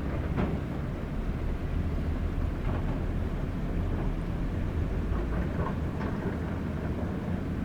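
Diesel excavator engines running under load in a steady low rumble, with a few faint knocks from the machines' work.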